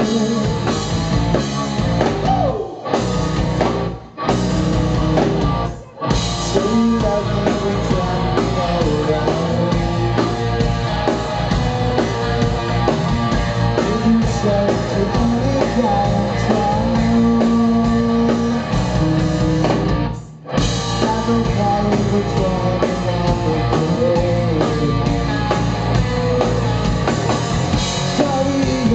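Live rock band with electric guitar, bass guitar, drum kit and a lead singer, playing a song. The sound drops out briefly three times in the first six seconds and once more about twenty seconds in.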